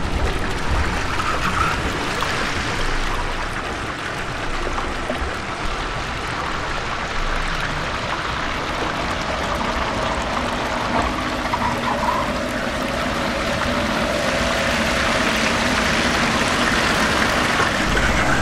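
Steady rushing noise spread across low and high pitches, with a few faint held tones coming in during the second half.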